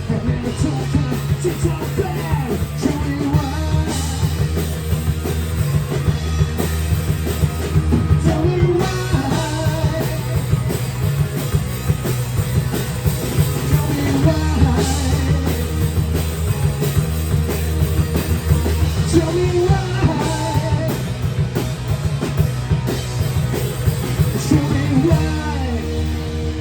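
Live rock band playing with drum kit and a heavy low end, keeping a steady beat, with a melodic line bending above it.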